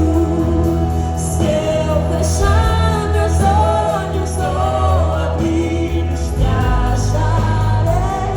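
Gospel worship song: voices singing a melody over band accompaniment with a strong, steady bass line.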